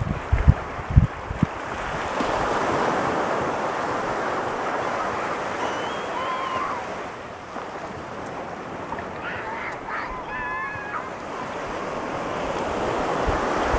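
Pacific surf washing up a sand beach: a steady rush of breaking waves that swells and eases, with wind buffeting the microphone near the start. Two brief high calls cut through, one midway and one a few seconds later.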